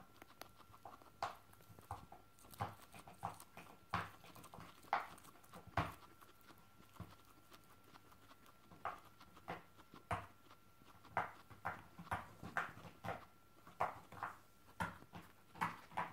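Guinea pigs making a string of short, sharp sounds at irregular intervals while being petted, coming faster in the second half.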